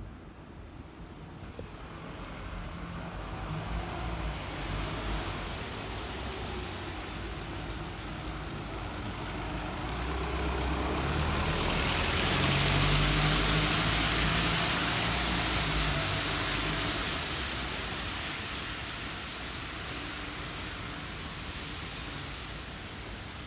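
A motor vehicle passing on a wet street: low engine hum and tyre hiss swell slowly to a peak about halfway through, then fade.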